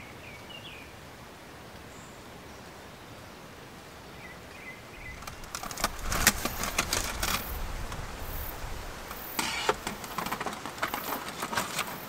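Steady rain falling on a forest campsite, with a couple of faint chirps. About halfway through, close handling noise takes over: rustling, knocks and rapid clicking of camp gear being moved at close range.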